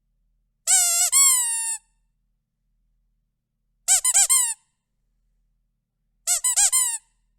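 Rubber chicken squeezed three times, each squeeze giving a cluster of shrill, pitched squawks that rise and fall, with silence between: a longer drawn-out squawk first, then two quicker runs of short squawks.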